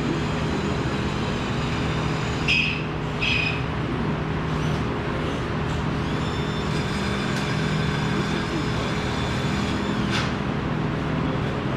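Steady machine hum with constant background noise, and two short high-pitched squeals about two and a half and three and a half seconds in.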